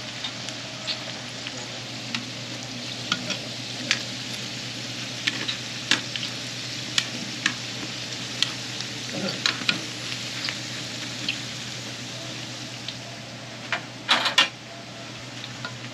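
Fishcake hotteok shallow-frying in hot oil: a steady sizzle broken by frequent sharp crackles and pops. Near the end there is a short, loud clatter.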